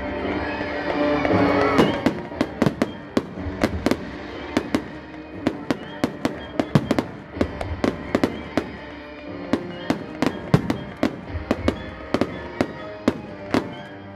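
Fireworks going off in quick succession, a run of sharp cracks and bangs about two or three a second, over music.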